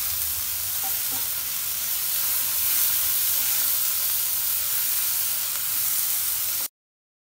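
Onion, green chilli and tomato purée masala sizzling in hot oil in a kadai while a wooden spatula stirs and scrapes it. The steady sizzle cuts off suddenly near the end.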